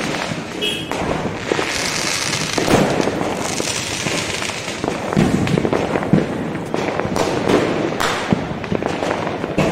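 Fireworks going off overhead, shells bursting into showers of sparks: continuous crackling with a bang every second or so.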